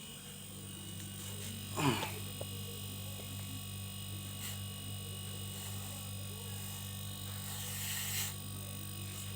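Refrigerator compressor running with a steady electric hum. A short hiss comes a little before the end.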